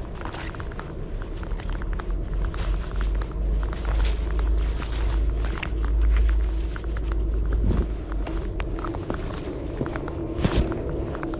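Footsteps of a person walking along a grassy riverbank, with many small knocks and rustles of clothing brushing the body-worn camera. Heavy wind rumble on the microphone eases after about eight seconds, and a steady low hum runs underneath.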